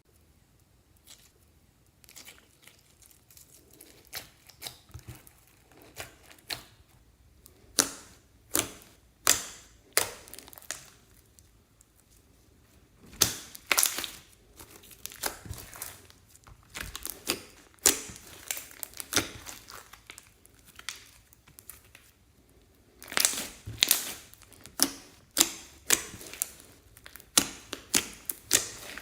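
Clear slime being squeezed, stretched and folded by hand, giving irregular sticky pops and crackles that come in clusters, starting about two seconds in.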